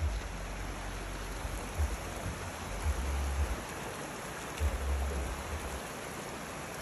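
Shallow mountain stream running over rocks: a steady hiss of flowing water. Short low rumbles come and go about two, three and five seconds in.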